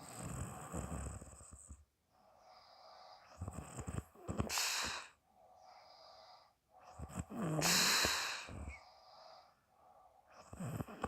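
A woman snoring in her sleep: a low rattling snore, then a loud breath puffed out through the mouth, repeating about every three to four seconds.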